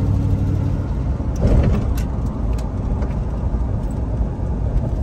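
In-cabin sound of a hot rod on the move: the low rumble of its Ramjet 350 small-block V8 under way, with road and tyre noise. There is a brief louder rumble about a second and a half in.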